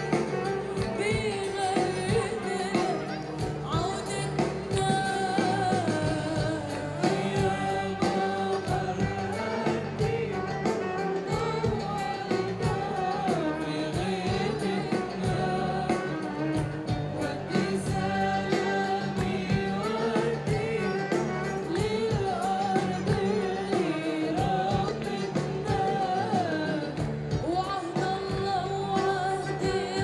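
A woman singing a melodic song into a microphone, with instrumental accompaniment, amplified over a stage sound system.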